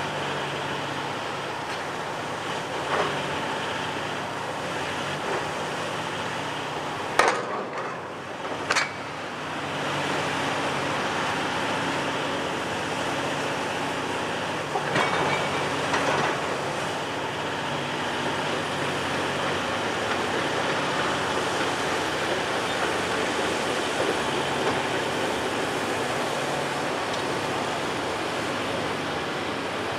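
Heavy demolition excavators running steadily, diesel engine and hydraulics, while a sorting grapple handles a rusty steel tank: a few metal knocks and clanks over the machine noise, the sharpest two about seven and nine seconds in.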